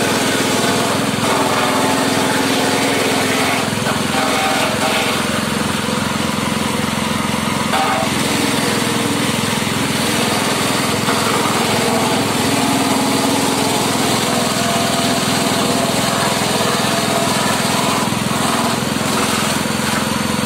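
Small engine running steadily, driving a grass chopper as grass is fed in and cut, with the chopping noise of the blades mixed into the engine sound.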